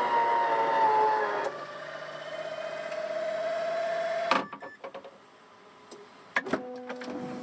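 Electric drive of a Rollx power fold-out wheelchair ramp unfolding. The motor whines, its pitch falling and then holding nearly steady, until a clunk about four seconds in as the ramp comes down. A second clunk and a short hum follow near the end.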